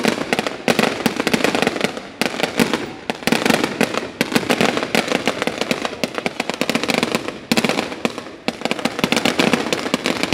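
Fireworks going off in a rapid, dense crackle of many sharp pops, coming in waves that ease briefly a few times before building again.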